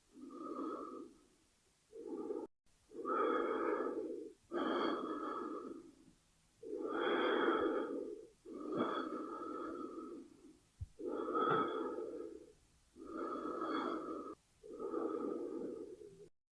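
A person breathing slowly and steadily through the airway, long inhales and exhales of about a second and a half each following one another with short pauses between. The breathing cuts off suddenly near the end.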